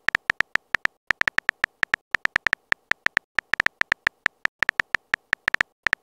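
Keyboard tap sound effect of a texting-story app: a rapid, slightly uneven string of short, high clicks, about six a second, as a message is typed out letter by letter.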